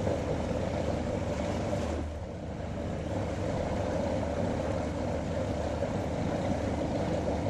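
Motorboat's engine running steadily at low speed, a constant low drone.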